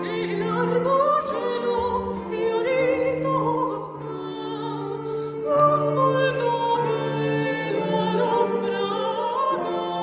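A woman singing an early Baroque Italian song with a small period-instrument ensemble: plucked lute and small guitar, a bowed bass string instrument holding low notes, and a wooden wind instrument playing along.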